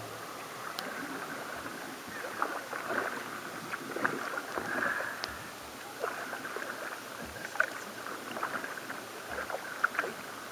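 Kayak paddle strokes in calm seawater: the blade dipping and pulling through the water, with irregular small splashes and drips and water lapping against the hull.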